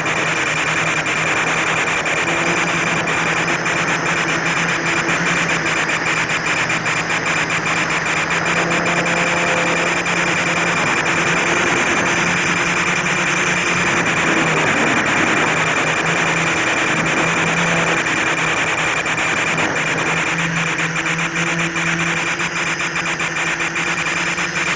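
FPV quadcopter's electric motors and propellers running in flight: a steady hum over a rushing noise, its pitch drifting up and down a little as the throttle changes.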